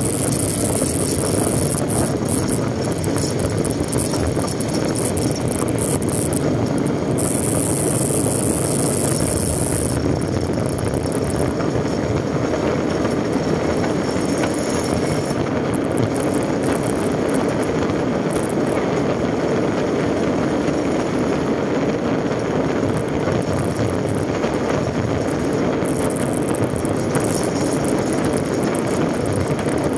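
Steady rush of wind and road noise on the microphone of a moving motorcycle, with the engine buried in it, riding on along a concrete road.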